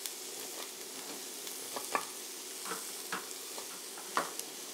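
Chopped onion sizzling in olive oil in a stainless sauté pan, a steady hiss, with about nine irregular knocks of a chef's knife dicing onion on a wooden cutting board.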